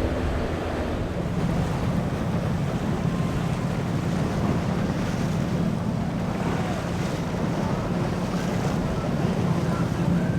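A boat's engine running with a steady low hum under the wash of waves, and wind buffeting the microphone.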